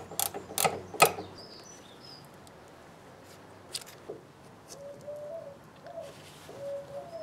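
Three sharp metallic clinks of spanners on the braided fuel hose's AN fittings as they are tightened, all in the first second. In the second half a pigeon coos faintly in the background.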